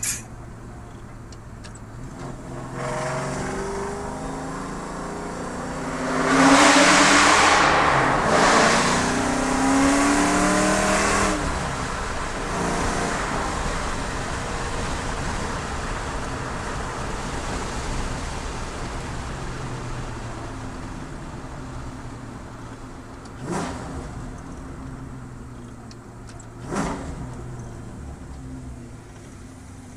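1994 Mustang Cobra's 5.0 V8, with a Stage 1 cam, BBK long-tube headers and X-pipe, running through SLP LoudMouth mufflers. It is revved repeatedly a few seconds in, the pitch climbing and dropping, then settles back to a steady idle. Near the end there are two short, sharp throttle blips.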